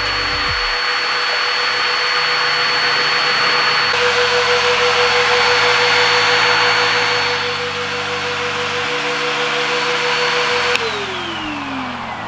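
Adam's Polishes Air Cannon dual-motor car dryer blowing air through its hose, a steady rush with a high whine. Near the end it is switched off with a click and the whine falls away as the motors spin down.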